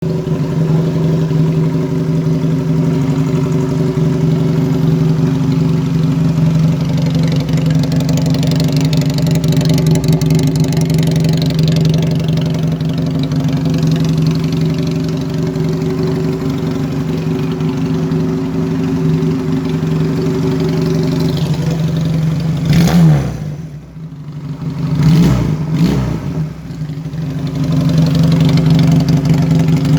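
Benelli Patagonian Eagle 250's V-twin engine idling steadily. About twenty-two seconds in the throttle is blipped a couple of times, the pitch rising and falling, before it settles back to idle.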